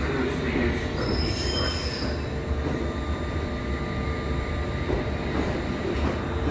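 London Underground S7 Stock train running slowly into a terminus platform: a steady low rumble, with a brief high wheel squeal about a second in.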